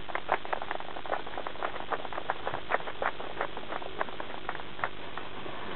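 Scattered applause from a small audience: a few people clapping irregularly, a few claps a second, thinning out and stopping about five seconds in.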